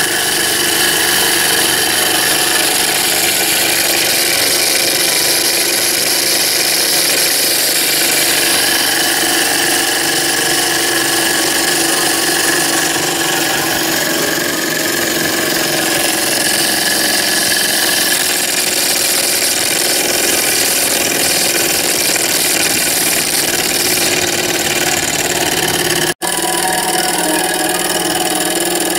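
Small Stirling engine running steadily at speed on an HHO torch flame, a continuous mechanical whir over the hiss of the flame, as it spins a tiny DC motor used as a generator. The sound drops out for an instant near the end.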